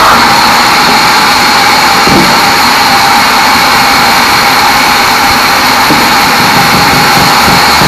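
Large sawmill bandsaw running and sawing through teak, a loud steady machine noise with a constant whine.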